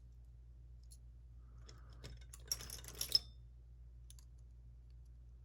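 Small metal clicks and clinks from a high-security lock and its tools being handled on a bench, with a short burst of sharper clinks about two to three seconds in.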